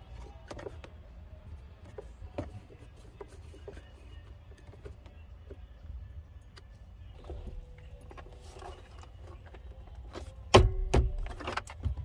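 Handling noises at a Jeep Wrangler JK steering column: scattered light clicks of a screwdriver working a screw, then about ten and a half seconds in a loud sharp plastic knock followed by several clacks as the column parts around the turn signal switch are handled.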